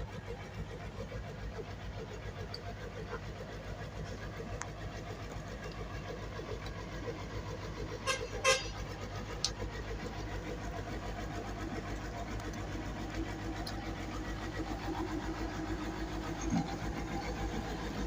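Hitachi excavator's diesel engine running steadily, with a couple of sharp clanks about eight seconds in.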